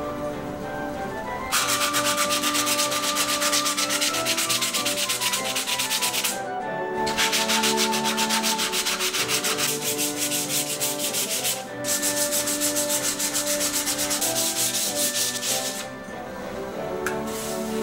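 Hand sanding of a 3D-printed wood-filament sword blade with a sanding block: quick back-and-forth scratching strokes in three long spells, broken by short pauses about six and twelve seconds in. Background music plays underneath.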